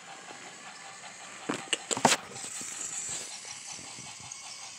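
Battery-powered TrackMaster toy train running on plastic track: a steady running noise with light, regular clicking, and a cluster of louder plastic clacks and rattles about one and a half to two seconds in.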